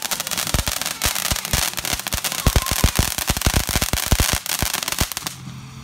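Ground firework spraying sparks: a continuous hiss broken by a rapid run of sharp pops and crackles, several a second, that stops abruptly about five seconds in.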